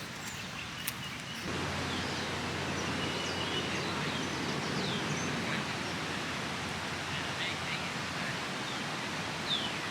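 Outdoor ambience: a steady rushing noise that gets louder about a second and a half in, with scattered short bird chirps over it.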